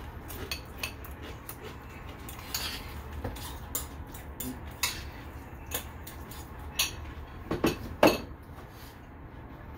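A metal fork clinking and scraping against a ceramic bowl of guacamole in scattered small clicks, with a few louder knocks close together near the end.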